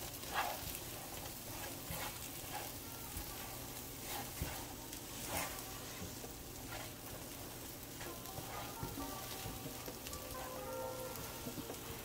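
Rice cakes in sticky gochujang sauce, with crispy garlic and tempeh, sizzling in a nonstick frying pan while a silicone spatula stirs and scrapes them around. The sizzle is a steady hiss, and the spatula strokes come about once a second.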